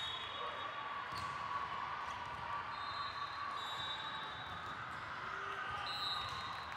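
Indoor volleyball match: a ball striking and bouncing on a hard court, a few short high shoe squeaks, and faint background chatter from players and spectators.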